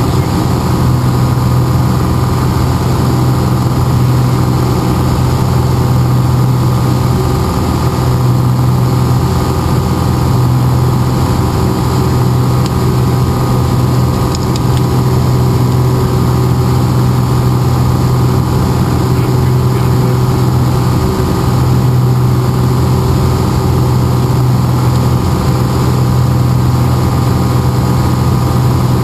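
Steady drone of a Piper Lance's six-cylinder Lycoming engine and propeller in flight, heard inside the cabin, with a strong low hum and no change in pitch.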